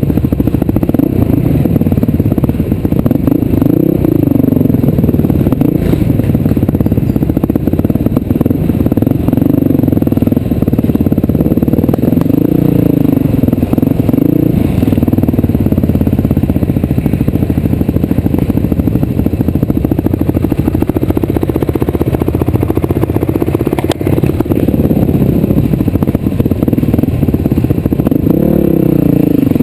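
A vehicle engine running hard, its pitch rising and falling every few seconds as the revs change, with rattling and clattering over it.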